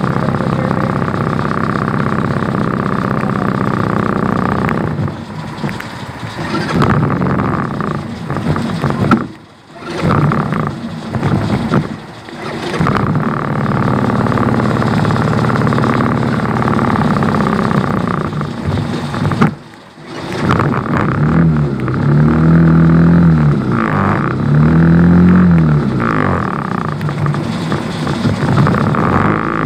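Motor vehicle engines running in stopped traffic. About two-thirds of the way through, an engine revs up and down twice.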